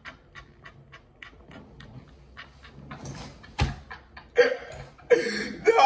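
A man laughing hard in quick, breathy pulses that fade over the first couple of seconds, then a single thump about three and a half seconds in, followed by louder laughter near the end.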